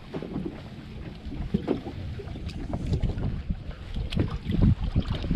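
Wind buffeting the microphone in irregular low gusts aboard a boat lying at anchor with no engine running, with a couple of light knocks.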